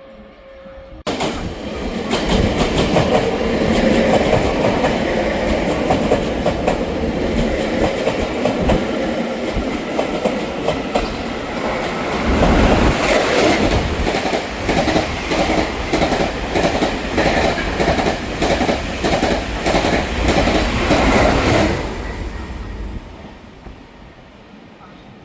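Passenger train passing through the station at speed, its wheels clacking over the rail joints (fishplates). It starts abruptly about a second in, settles into a regular clack about twice a second, then fades away near the end.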